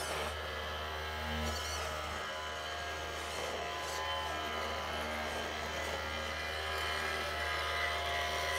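Small electric motor of an RC model truck or road roller buzzing steadily.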